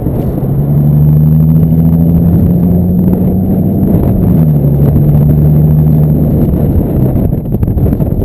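Infiniti G35 sedan's 3.5-litre V6 running through an exhaust with the muffler and resonator deleted: a loud, deep drone that climbs slightly in pitch, drops a step a little past the middle, holds steady, then fades near the end.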